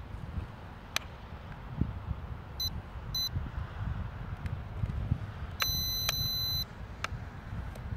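Electronic beeps: two short high beeps about half a second apart, then one longer beep lasting about a second. Under them runs a low rumble of wind on the microphone.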